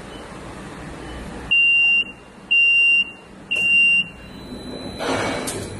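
Buzzer on a packing machine's control panel giving three high, steady beeps, each about half a second long and about a second apart, over a low machine hum. A hiss of air starts near the end.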